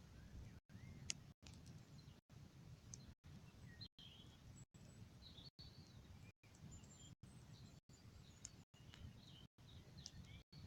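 Near silence: a bonfire burning quietly, with a few faint crackles and pops and faint high chirps. The sound cuts out briefly and regularly, about once a second.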